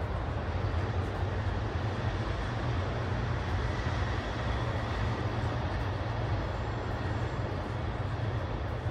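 Steady outdoor city din: a constant low rumble, as of traffic, under an even hiss.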